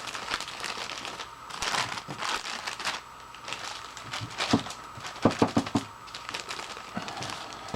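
A bag being handled and turned over with brass switch plates inside, crinkling irregularly, with a cluster of sharp clicks about five seconds in.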